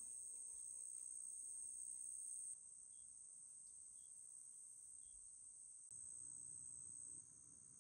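Faint, steady high-pitched chirring of an insect chorus, like crickets, which cuts off about seven seconds in.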